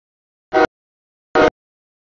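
Locomotive air horn sounding two short blasts about a second apart, each cut off abruptly.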